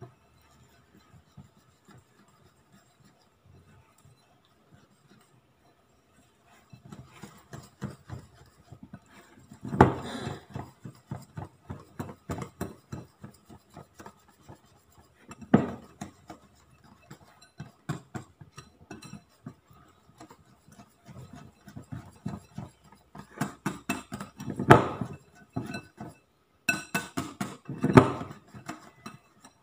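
Wire whisk beating egg-yolk and flour batter in a ceramic bowl: rapid, irregular clicking of the wires against the bowl, starting about six seconds in, with a few louder knocks along the way.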